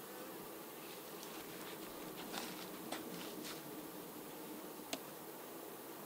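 Honey bees buzzing around an open hive, a steady hum. There are a few light clicks and knocks from the hive frames being handled, the sharpest about five seconds in.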